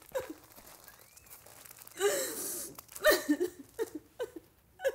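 A woman sobbing: short, broken, falling cries with a long gasping breath about two seconds in.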